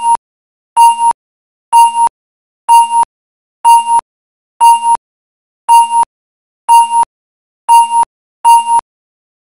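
Countdown beeps: a short electronic beep about once a second, nine times, the last two a little closer together.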